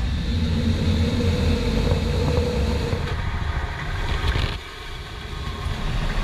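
Steady low rumble of engine and airflow noise inside a C-17 Globemaster's cargo hold in flight. It drops in level about four and a half seconds in, then builds again.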